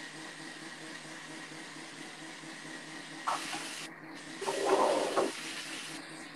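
Water from a kitchen tap splashing into a sink in two short bursts, a brief one about three seconds in and a louder, longer one a second later, over a steady low hiss.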